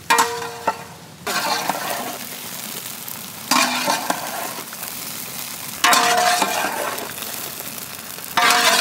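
Cut brinjals frying in a large pot of hot gingelly oil, sizzling steadily. The sizzle surges suddenly four times, about every two seconds, as the pieces are stirred through the oil.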